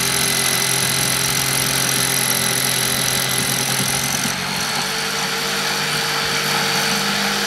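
Tramontina jigsaw running steadily, its reciprocating blade cutting through a pine board. The motor's note shifts slightly about four seconds in.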